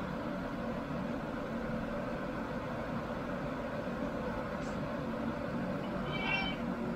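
Steady mechanical hum of a running motor or appliance, even throughout. About six seconds in comes one short, high mew from a cat.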